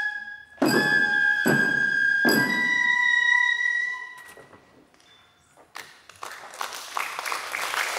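Shishimai accompaniment: a bamboo flute holds high notes over three drum strikes in the first few seconds, and the music ends about four seconds in. After a short pause, applause begins near the end.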